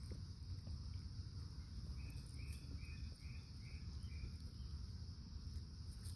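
Insects trilling in a steady, high-pitched drone, over a low rumble. A short run of about six even chirping notes comes in the middle.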